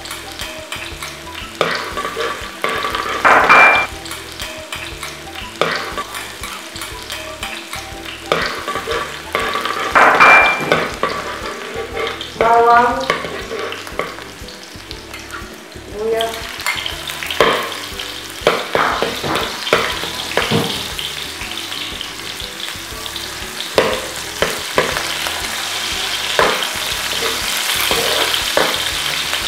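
Garlic frying in hot oil in a metal wok, a steady sizzle that grows louder about halfway through, with a spatula scraping and tapping against the pan as it is stirred. Twice in the first half there is a louder clatter against the pan.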